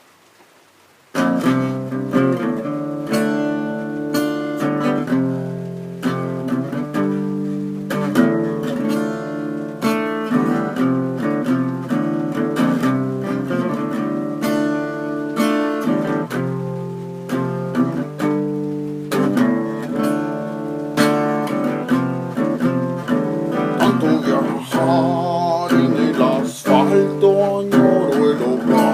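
Acoustic guitar playing an instrumental intro, plucked and strummed, starting about a second in; toward the end a wavering, bending melody line joins in.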